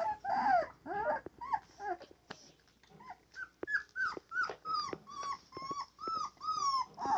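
German shorthaired pointer puppy yipping and whining at an older dog during play: a run of short high calls, each falling in pitch, about two a second, rougher and growly in the first two seconds.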